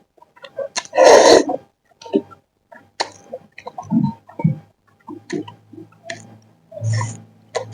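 Close-up mukbang eating sounds: wet mouth clicks and smacks from chewing noodles and fries, with a loud breathy burst about a second in.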